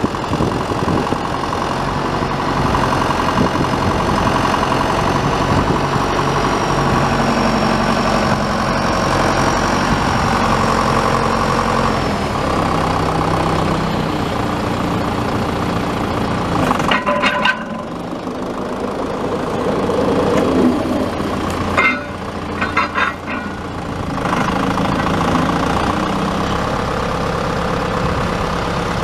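John Deere 6420 tractor's four-cylinder turbo diesel engine running steadily at idle, with a few short sharp knocks about two thirds of the way through.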